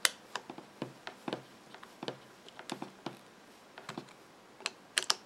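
Screwdriver hand-tightening the screws of a plastic plug's cord clamp: light, irregular clicks and ticks, a few each second, loudest at the start and about five seconds in.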